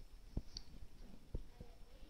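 Faint room tone with two soft, low thumps about a second apart: handling noise from hands pressing remote-control buttons.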